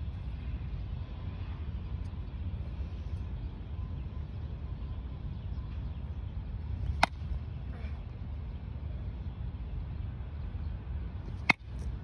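Two sharp cracks of a baseball bat hitting pitched balls, about four and a half seconds apart, the second louder, over a steady low rumble.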